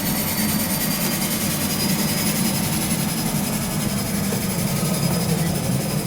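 Seaplane's turboprop engines running steadily: a low drone with a high turbine whine that rises slowly.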